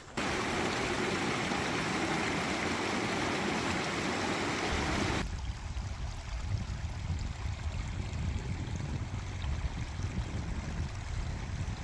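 Mountain stream rushing, a loud steady hiss of water. About five seconds in it changes abruptly to a duller, lower rumble.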